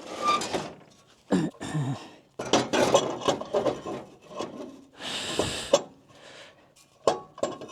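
Hands working on tractor parts: irregular scraping, rubbing and light metallic knocks as a part is fitted back on, with a brief rushing noise about five seconds in.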